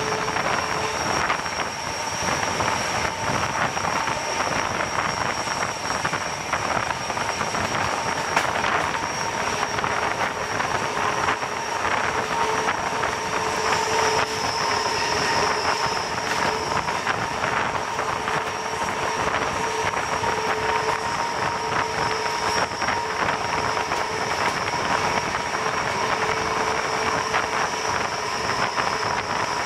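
ČD Class 742 diesel-electric locomotive running along the line, its engine working steadily over wheel-on-rail noise and wind rushing past the open cab side. Steady whining tones sit above the noise.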